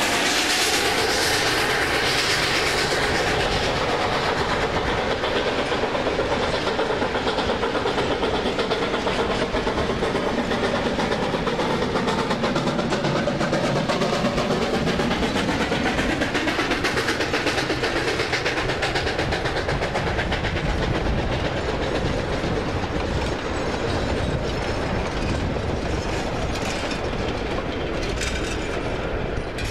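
Narrow-gauge steam train hauled by a Rio Grande K-28 locomotive running steadily, its wheels clicking over the rail joints.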